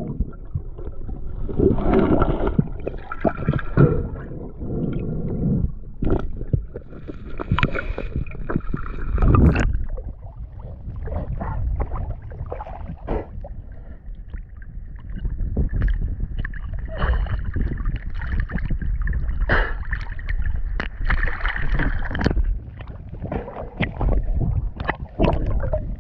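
Water gurgling and sloshing around a camera at or just under the surface, with a low rumble and frequent irregular knocks and clicks.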